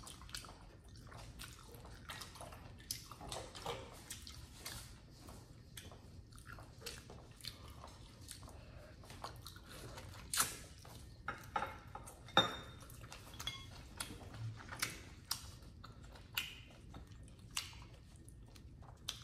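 Close-up chewing and biting of goat meat, two people eating: faint, irregular wet mouth clicks and smacks, with a few sharper clicks about ten and twelve seconds in.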